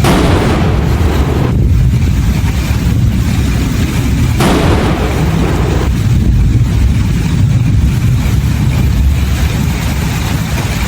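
Thunder from close lightning strikes: two sudden cracks about four seconds apart, each fading into a heavy low rumble that goes on between them.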